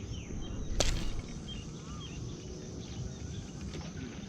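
Birds calling in short, repeated falling chirps over a steady high insect drone and a low rumble. One sharp snap about a second in.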